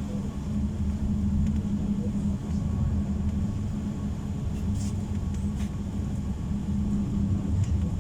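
PESA low-floor tram running between stops, heard from inside the passenger saloon: a steady low rumble with a constant hum, and a couple of brief clicks about five seconds in.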